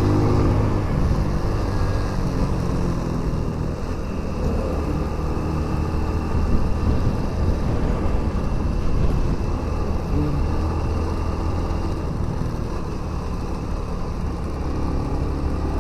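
Motorcycle engine running steadily under way, with wind noise over the microphone; the engine is not pulling well, which the rider puts down to being in too high a gear.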